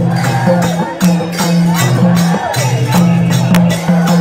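Music with a steady bass line changing notes every half second or so, sharp percussion hits and a bending melody line over it.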